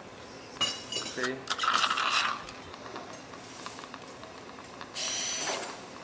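Metal surgical instruments clinking and rattling in the first half, then a powered surgical drill runs in one short burst of under a second near the end, with a thin high whine.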